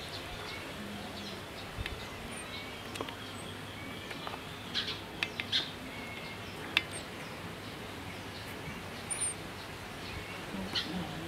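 Small birds chirping intermittently in the background over a steady low ambient hiss, with a few brief sharp clicks.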